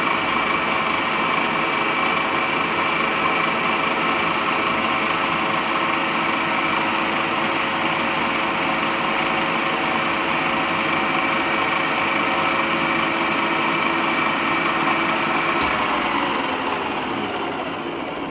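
Standard Modern 1333 gear-head lathe running at high spindle speed, the headstock gears giving a steady whine. About 16 seconds in it is switched off and winds down, the whine falling in pitch as the spindle coasts to a stop.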